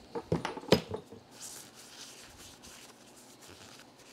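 Paper towel wiped and rubbed over the steel halves of a 5C collet chuck during an isopropyl alcohol wipe-down: two sharp knocks in the first second, then a soft rustling rub.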